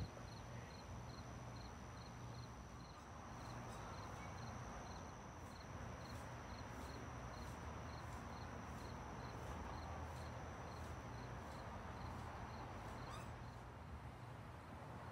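Insects chirping in summer trees: a steady high trill with a regular high chirp a few times a second, over a faint low rumble.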